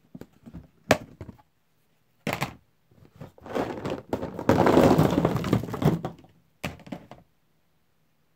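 Small plastic action figures clattering as they are tipped out of a plastic storage tote onto a table: a few knocks first, then a dense rattling pour lasting about two seconds, and a last short clatter near the end.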